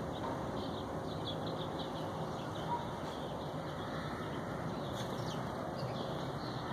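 Small birds chirping, many short quick chirps overlapping, over a steady background hiss.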